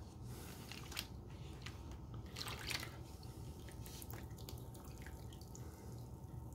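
Liquid sealer sloshing and dripping as a black tray is worked in a plastic tub of sealer and lifted out: a few soft splashes and drips, the loudest about two and a half seconds in.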